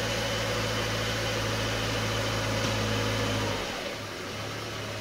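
Subaru Forester's 2.5-litre flat-four engine idling steadily, with a low steady hum that dips and comes back quieter about three and a half seconds in.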